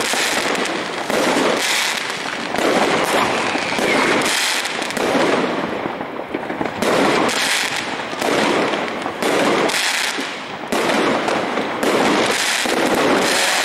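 Fireworks going off without pause: aerial bursts and firecracker bangs, several a second and overlapping, over a steady crackle.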